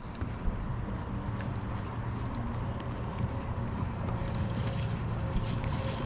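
Bass boat's motor running steadily, a low drone with some wind and water noise.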